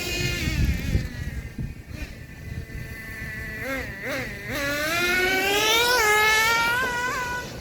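Traxxas T-Maxx's 2.5 two-stroke nitro engine running and being revved by hand: the pitch falls toward idle at the start, rises and falls in a few quick revs around the middle, climbs steadily, then gives two short blips near the end.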